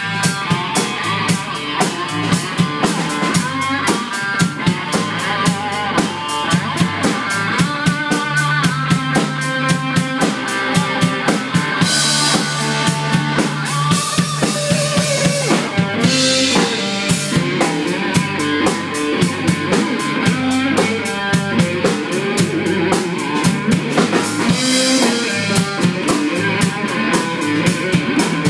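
Live band playing an instrumental rock song: electric guitar over a drum kit keeping a steady, busy beat, with cymbal crashes now and then.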